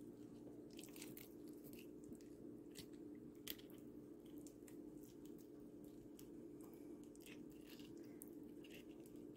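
Faint wet squishing and crackling as a ripe avocado is squeezed by hand into a plastic container, with a sharper click about three and a half seconds in, over a steady low hum.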